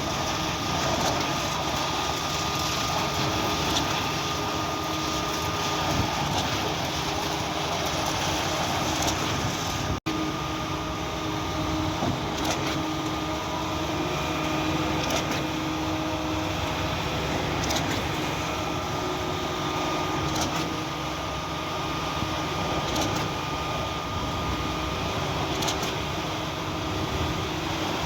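Cifa K41 truck-mounted concrete pump running with a steady engine drone. A short knock recurs about every two and a half seconds in the second half, and the sound breaks off for an instant about ten seconds in.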